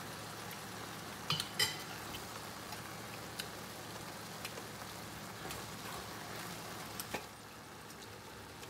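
Wooden spatula stirring food in a stainless steel pan, giving a few sharp clinks against the metal, over a steady frying hiss that drops away about seven seconds in.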